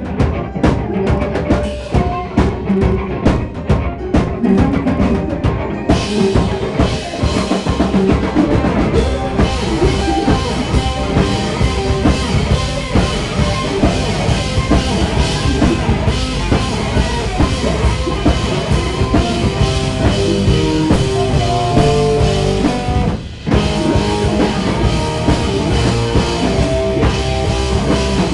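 Live rock band playing loudly: drums and bass carry the first few seconds, then the full band with crashing cymbals comes in about six seconds in. The music breaks off for a moment near the end and comes straight back in.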